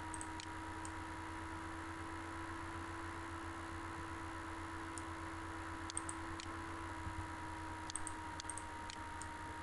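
Faint computer mouse clicks, a few scattered single clicks in the second half, over a steady electrical hum.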